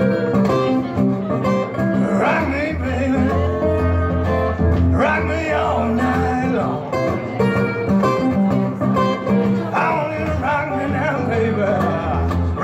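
Acoustic guitar strummed in a steady blues groove, with a man's voice singing short phrases now and then over it.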